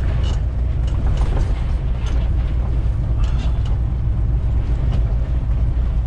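Semi-truck's diesel engine and road rumble heard inside the cab, with irregular knocks and rattles as the rig bumps over a rough, potholed road.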